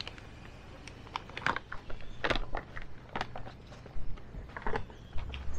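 Scattered clicks, knocks and rustling as coffee-making things are handled: a paper coffee packet, a filter and a thermos. A steady low hum runs underneath.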